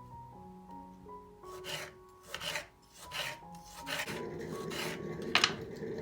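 Soft background music with slow held notes, and about six short rasping scraping strokes over it, roughly one every half second. About two-thirds of the way through, a steady low rushing noise joins in.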